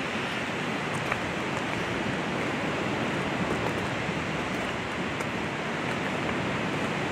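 Steady rushing of the Kern River running high through the canyon, an even noise with no break.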